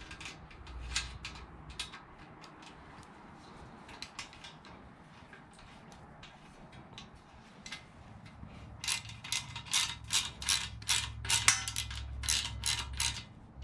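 Metal clicks from hand tools tightening bolts on a homemade metal sand scoop. The clicks are sparse at first, then turn into a quick run of ratchet-like clicking in the second half.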